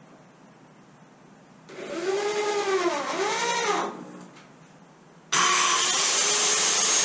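Cordless drill driving a screw into the wooden framework, its motor speeding up and slowing down twice under the trigger. About five seconds in, a louder power tool starts abruptly and runs steadily with a high whine.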